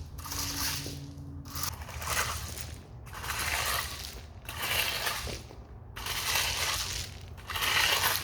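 Tractor spreading number 4 two-inch gravel: stones crunching and scraping in repeated surges about once a second, over the low steady running of the tractor engine.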